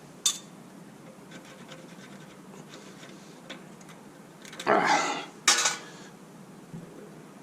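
A stuck brake pad being worked in its caliper: metal rubbing and scraping with small clicks, a louder scrape about five seconds in and a sharp knock just after it. The pad will not come out.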